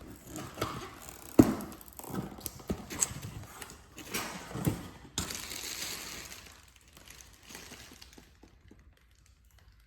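Cardboard Funko Pop boxes and their packaging being handled: scattered knocks and taps, the loudest a little over a second in, then a stretch of rustling about five seconds in.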